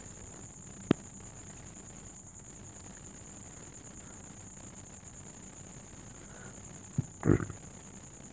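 Small handling sounds of tweezers and fingers pressing the thin coaxial antenna cables into the mainboard of a Samsung Galaxy A20: one sharp click about a second in and a duller knock with a short low sound near the end. A steady high-pitched tone and faint hiss run underneath.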